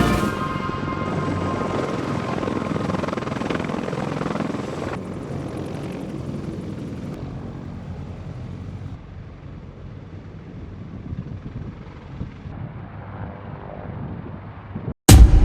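Helicopter in flight, its rotor and engine noise gradually fading away. Near the end it cuts off briefly, and a sudden loud sound follows.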